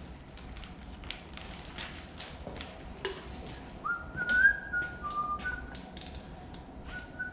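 A man whistling a short tune of held notes, starting about four seconds in, over scattered sharp clicks and clinks of tools.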